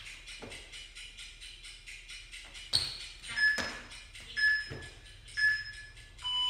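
Workout interval timer counting down: three short high beeps about a second apart, then a longer, lower beep starting near the end that marks the end of the interval. Under it runs music with a fast ticking beat, with a few dull knocks from hands and feet landing on the tile floor during burpees.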